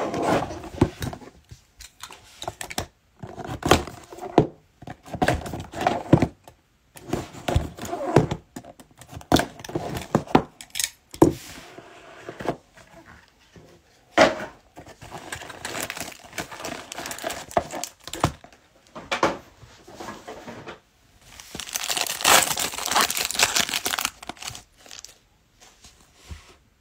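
Trading-card packaging being handled and opened: irregular crinkling and rustling of a cardboard box and a foil booster-pack wrapper, with a louder stretch of the wrapper being torn and crinkled about three-quarters of the way through.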